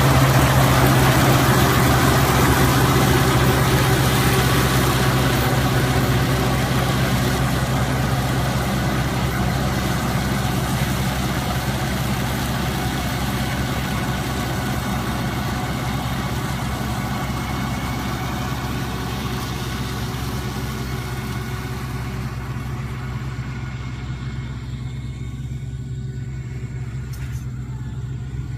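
Engine running steadily with a constant low hum, slowly getting quieter.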